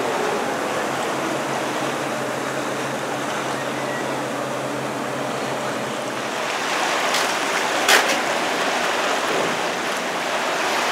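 Boat engine running steadily with water rushing along the hull, heard from on board; a single sharp knock about eight seconds in.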